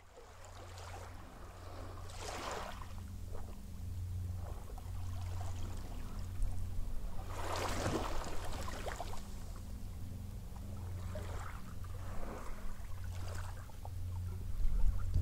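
Shallow sea water sloshing and washing against a microphone at the waterline, rising and falling in several slow swells over a steady low hum.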